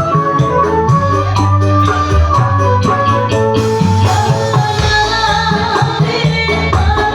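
Music with a steady beat, a bass line and melody. A sharp, regular high ticking runs through the first half and drops out about halfway.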